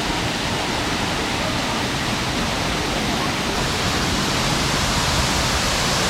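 High Shoals Falls, a waterfall, rushing: a steady, even noise of falling water that swells slightly about halfway through.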